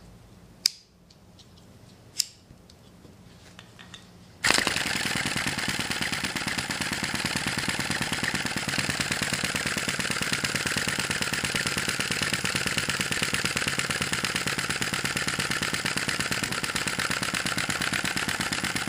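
Two sharp clicks, then about four and a half seconds in a Sai Hu V1-45 flame-licker vacuum engine model begins running on its alcohol flame: a steady, rapid mechanical clatter that holds an even pace.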